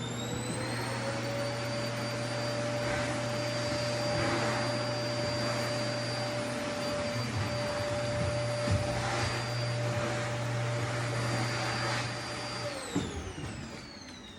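Vacuum cleaner motor with a whine that climbs to full speed about a second in, then runs steadily. Near the end it is switched off and winds down in a falling whine.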